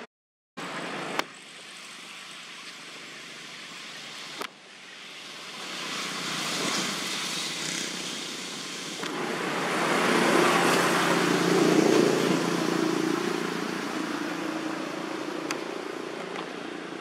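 A motor vehicle driving past on a road: its engine and tyre noise swell from about five seconds in, are loudest around the middle, then fade away.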